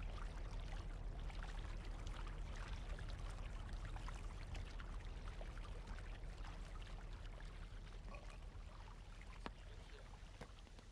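Water splashing and trickling from a double-bladed paddle as it dips in and lifts out beside an inflatable kayak, with a steady low rumble underneath; the sound fades out near the end.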